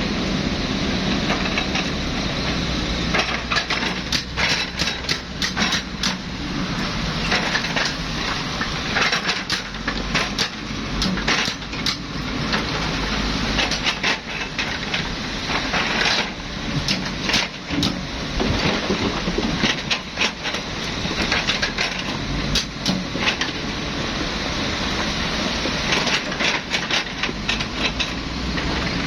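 Volvo excavator working rock: its diesel engine runs steadily underneath, with frequent crunching, cracking and clattering of stone throughout.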